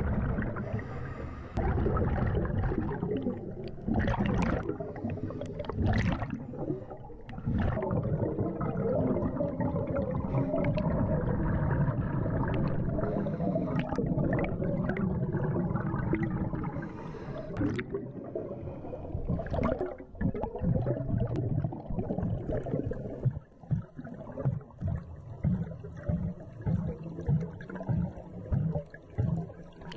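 Scuba regulator exhaust bubbles gurgling and rushing past the camera underwater as the diver breathes out, in long surges that break into short pulses about twice a second near the end.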